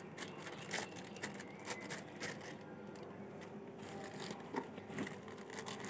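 Rice grains being stirred and handled in a plastic basin: faint, irregular rustling with scattered light clicks.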